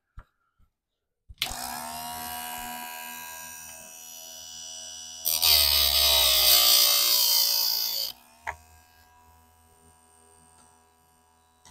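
Electric chainsaw-chain grinder switched on about a second and a half in, its wheel spinning with a steady whine. About four seconds in the wheel comes down on a cutter tooth and grinds loudly for about three seconds, held on the tooth a little long. It then stops, with a faint hum and a click.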